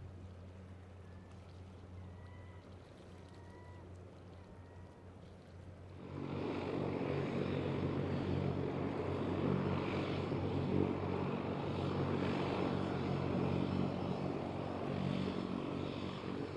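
Seaplane propeller engine, faint at first, then much louder from about six seconds in and holding steady, as with a floatplane powering up or taxiing close by.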